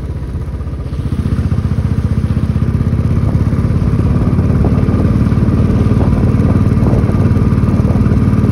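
Single-cylinder Royal Enfield motorcycle engine running under way, heard from the rider's seat. It gets louder about a second in as the bike pulls harder, then runs steadily.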